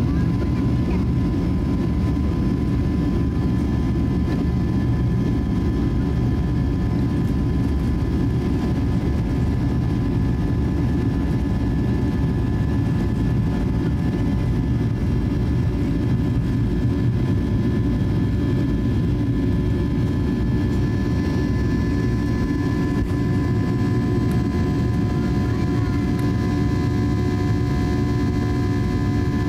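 Inside the cabin of a Boeing 737-800 at takeoff thrust: its CFM56-7B turbofan engines running as a loud, steady low rumble with several steady tones over it. The aircraft accelerates down the runway and lifts off, and some of the tones grow stronger in the second half.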